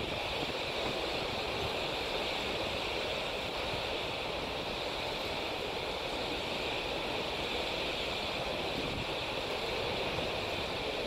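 Steady rushing noise of wind and moving water, even throughout with no distinct events.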